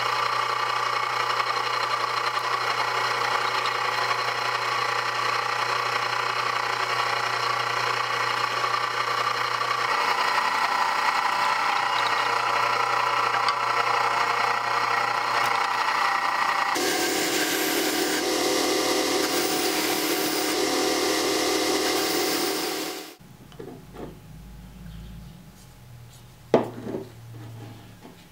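Drill press running with its bit cutting through a steel tomahawk handle plate. The sound changes character about ten seconds in and again at about seventeen seconds, then stops after about twenty-three seconds. Quieter small handling sounds follow, with one sharp knock near the end.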